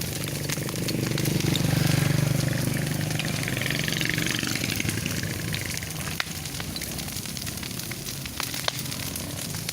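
An engine running steadily, its hum swelling about two seconds in and then easing off, with scattered sharp crackles over a faint hiss.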